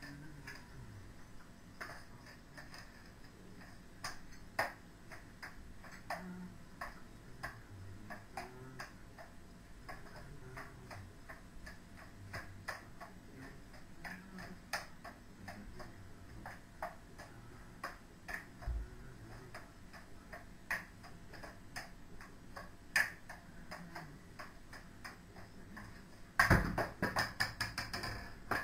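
Juggling clubs clicking and slapping into hands as they are thrown and caught, a string of irregular light clicks, with a louder clatter of knocks near the end.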